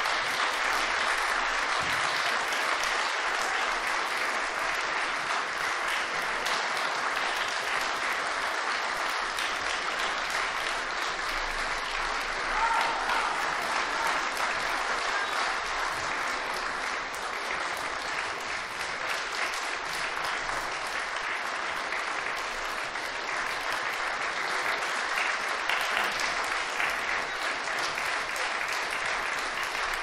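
Audience applauding steadily, a dense even clapping that eases off slightly in the second half.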